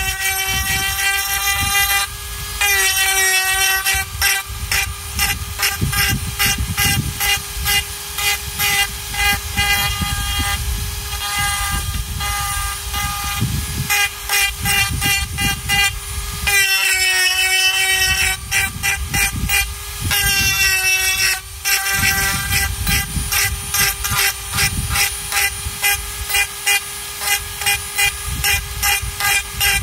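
Flex-shaft rotary carving tool running at high speed with a steady whine, a carving burr grinding into dried gourd shell in short repeated strokes, about two to three a second.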